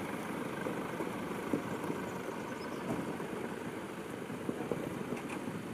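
Pickup truck's engine running low as it drives slowly over rough, dry ground, with a steady rumble and scattered small knocks.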